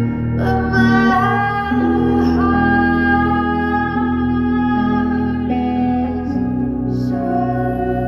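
Live music: a woman singing long held notes, with a few slides between pitches, over strummed acoustic guitar and steady keyboard and synthesizer tones.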